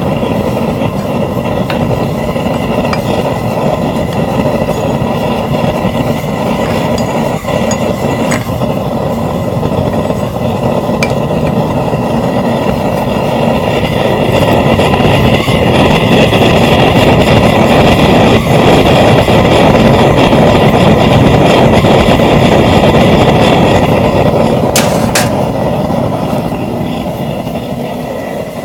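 Homemade propane forge burner, a 3/4-inch pipe with drilled holes, running with a steady rushing noise; it grows louder about halfway through and eases off near the end.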